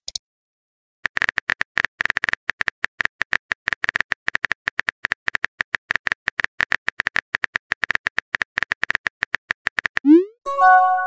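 Phone-keyboard typing sound effect from a texting-story app: rapid, irregular taps, several a second, for about nine seconds. Near the end comes a short rising whoosh and then a brief chime, the send and arrival tones of a chat message.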